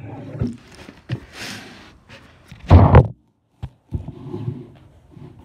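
Handling noise from a handheld camera microphone being knocked and rubbed: scattered low thumps and a brief rustle, then two loud, heavy thumps close together about three seconds in.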